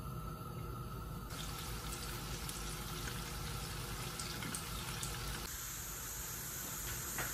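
Sliced onions sizzling in hot oil in a frying pan, a steady hiss as they fry toward light brown.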